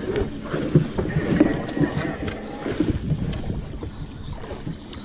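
Wind buffeting the microphone, with scattered knocks and rustling from handling on the boat deck.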